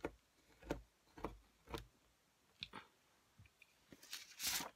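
We R Memory Keepers Sew Easy piercing tool's spiked wheel rolled along a ruler over paper: four sharp clicks about half a second apart, then lighter ticks, and a short scraping rustle near the end. It is pressed too lightly to pierce the paper fully.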